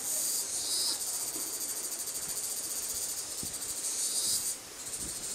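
Insects buzzing shrilly in the forest, a fast pulsing high-pitched drone that cuts off about four and a half seconds in.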